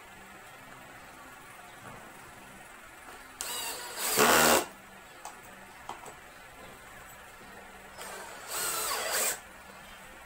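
Cordless drill driving screws into plywood panels in two short runs: one about three and a half seconds in, louder toward its end, and another about eight seconds in, each lasting about a second.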